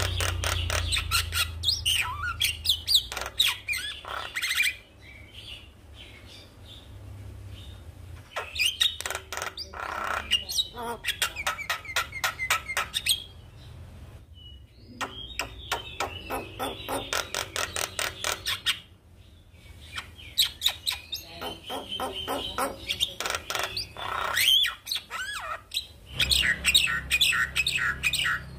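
Javan myna singing: bursts of rapid, harsh chattering notes mixed with whistled phrases, broken by pauses of one to three seconds.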